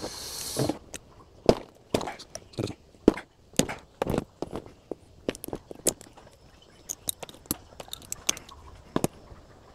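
Hand tools cutting and pulling nickel strip tabs off 18650 lithium-ion cells: irregular sharp clicks and metal snaps, with a short scraping rush at the start.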